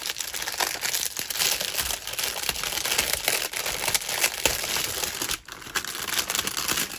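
Plastic bags of diamond painting drills crinkling as they are handled, a dense crackle of fine clicks with a short pause about five and a half seconds in.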